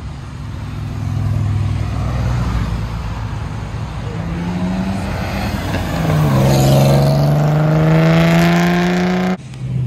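Car engines accelerating past on the road. The loudest is one car's engine pulling hard close by: its pitch drops at a gearshift about six seconds in, then climbs steadily as it goes past, and the sound cuts off suddenly near the end.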